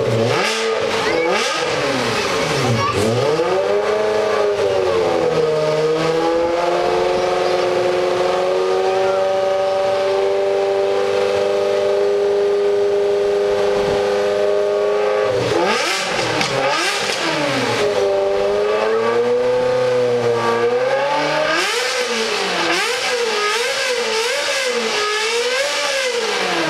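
Ferrari 360 Modena's V8 being revved while standing still. The pitch rises and falls, holds steady at high revs for several seconds in the middle, then swings up and down in a run of quick throttle blips near the end.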